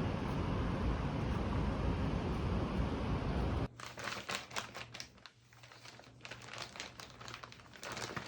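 A steady rushing noise cuts off suddenly about three and a half seconds in. It gives way to irregular crinkling and rustling of packaging being handled, with small clicks.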